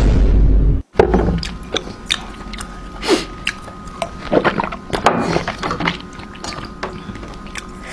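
Wet mouth noises of someone drinking and swishing water: slurps, squelches and clicks, with gulps as it is swallowed. A loud, brief burst of sound fills the first second.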